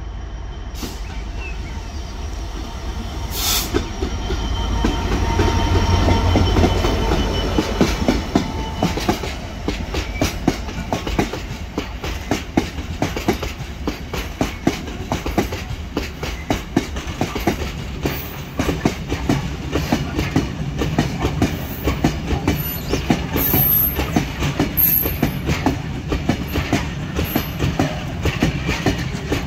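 A freight train passes at speed: a low diesel rumble builds and peaks about six seconds in, then a long rake of cement tank wagons rolls by, its wheels clicking steadily over the rail joints.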